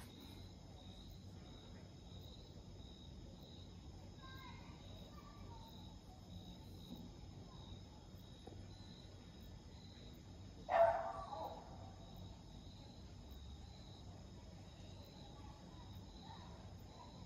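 Crickets chirping steadily, a pulsing chirp about twice a second, with a single short dog bark about eleven seconds in.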